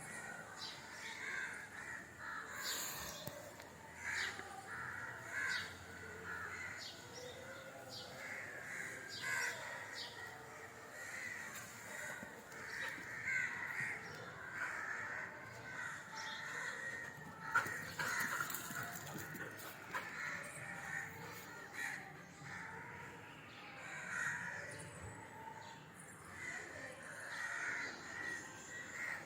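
Birds calling over and over, many short calls one after another.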